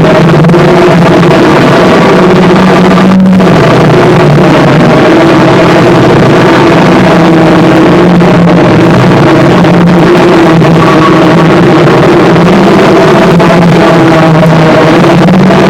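Harsh noise music: a dense, distorted wall of noise, held at full loudness, with a steady low drone under a thick hiss. A brief break cuts through the high hiss about three seconds in.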